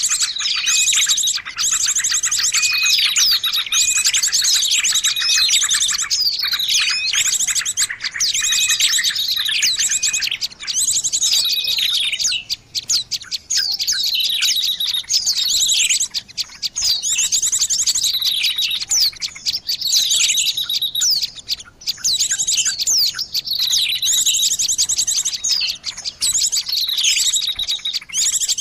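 Bird-lure recording of small songbirds calling: dense, high-pitched rapid trills and chirps overlap, with quick downward-sweeping notes repeating. Two short breaks come about halfway through and again later on.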